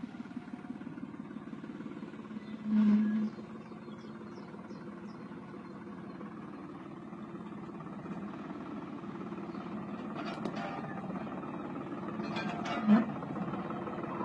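New Holland tractor engine running steadily. There is a brief loud low tone about three seconds in and a sharp bump near the end.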